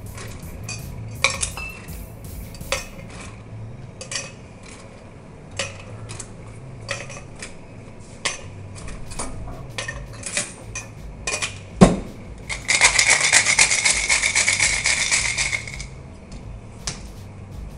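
Ice cubes clinking one by one into a stainless-steel cocktail shaker tin. About twelve seconds in comes a sharp knock, then about three seconds of fast, dense rattling as the shaker is shaken with ice.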